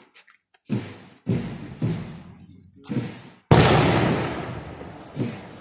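A series of sharp, loud bangs about half a second to a second apart, with one far louder bang about three and a half seconds in that rings on for nearly two seconds.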